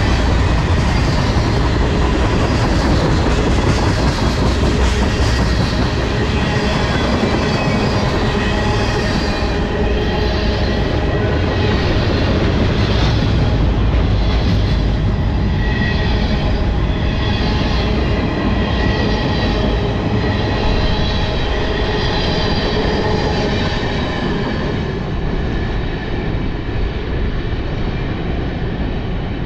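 Freight train of tank cars rolling past: a steady rumble of steel wheels on rail, with high metallic ringing squeals from the wheels recurring every second or so. The sound fades gradually over the last several seconds as the end of the train passes and recedes.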